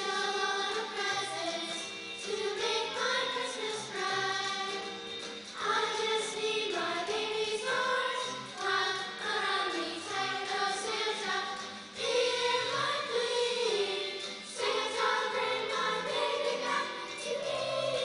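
Middle school choir singing together.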